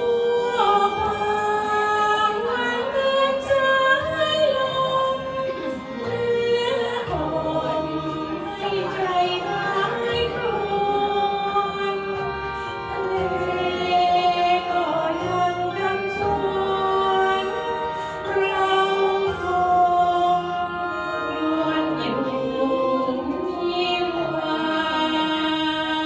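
A woman singing a Thai song into a microphone over a karaoke backing track, with long held notes.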